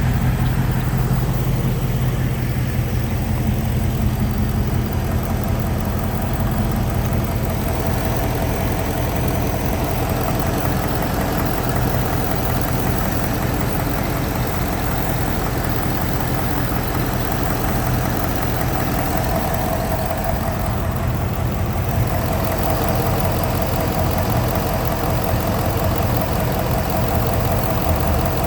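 2019 Ford Mustang GT's 5.0-litre Coyote V8 idling steadily, with no typewriter tick audible, which the owner credits to Pennzoil 5W-30 full synthetic oil with Rislone additive.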